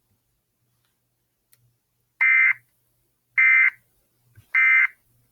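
Three short bursts of Emergency Alert System SAME data tones, about a second apart: the end-of-message signal that closes an EAS alert.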